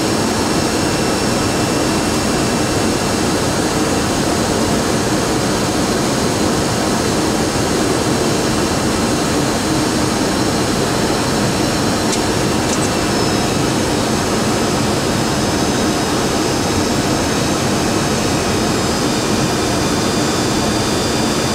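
Steady flight-deck noise of a Boeing 737-200 on approach: an even rush of airflow and its Pratt & Whitney JT8D-17A jet engines, with faint steady high tones over it. Two light clicks come about halfway through.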